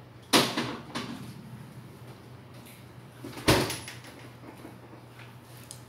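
Refrigerator door pushed shut with a knock just after the start, then a second sharp knock about three seconds later, over a faint steady low hum.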